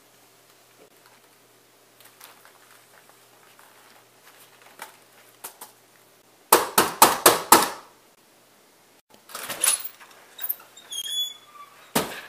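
Faint tapping of laptop keys, then a quick run of about six loud knocks on a door about six and a half seconds in, followed by some scattered clattering and a sharp click near the end.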